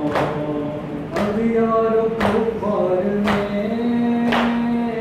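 Men chanting a mourning lament (noha) together in long held notes, with a sharp hand strike on the chest about once a second (matam) keeping the beat, five strikes in all.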